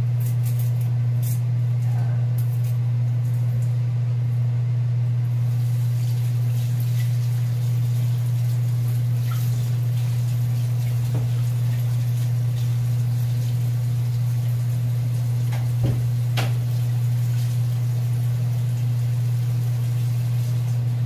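A steady low hum, the loudest thing throughout, over faint running tap water at a kitchen sink, with a few light knocks and clinks of things being handled in the basin.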